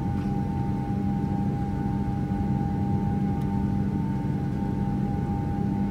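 Steady drone of a jet airliner cabin in flight on landing approach: an even rush of engine and airflow noise with a constant low hum and a steady high whine.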